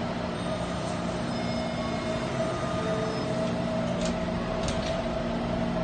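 Taipei Metro Bannan line train standing at the platform, its onboard equipment giving a steady hum with a constant mid-pitched tone and a lower drone. A couple of brief high clicks come about four seconds in and again just before five seconds.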